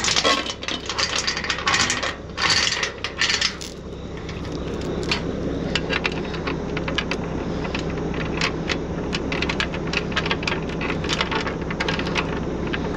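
Steel tire chains clinking and jingling as they are handled and fitted to a truck wheel, in heavy clusters over the first few seconds and then as a run of separate metallic clicks. A steady low hum lies underneath.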